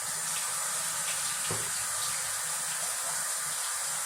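Tap water running steadily into a sink as a freshly cut dove breast is rinsed under it.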